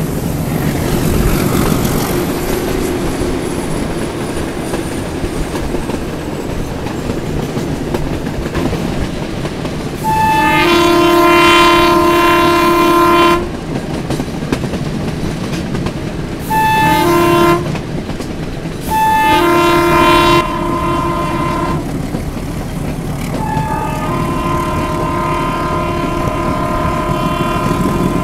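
Metre-gauge train sounding its horn in four blasts: a long one, a short one, a medium one and a long, softer one near the end. Each blast opens with a brief lower note before settling into a chord. Under the horn is the steady running rumble of the train on the rails.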